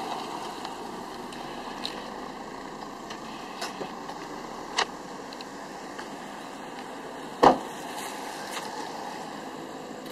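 Steady car engine noise with a few light clicks, and about seven and a half seconds in a single loud thump of a car door being shut.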